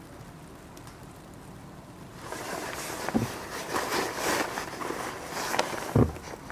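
Outdoor air hiss, then from about two seconds in a gust of wind rushing and rustling over the microphone, with two dull low thumps, one near the middle and one near the end.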